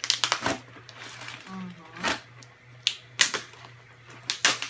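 Scissors and hands cutting and ripping into a heavily packing-taped cardboard package: short, sharp snips and tears at irregular intervals.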